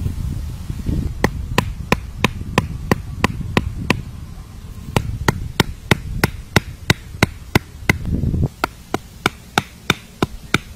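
Wooden stakes being pounded into the ground, a sharp knock about three times a second in three runs of strikes.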